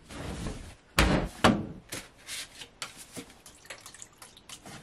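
A front-loading Electrolux washing machine being loaded: fabric rustles, then the door shuts with a thud about a second in, followed by a second knock. Light clicks and knocks follow as the detergent dispenser drawer is handled.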